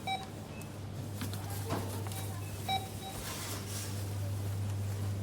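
Supermarket checkout: a barcode scanner beeps twice, a few seconds apart, over a low steady hum and faint rustling.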